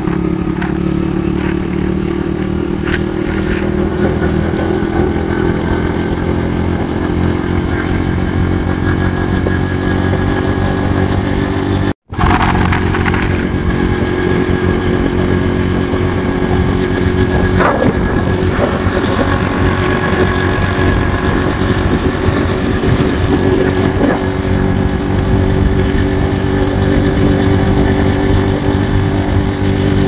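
Motorcycle engine running at a steady cruising speed, with wind and road noise. The sound cuts out for a moment about twelve seconds in.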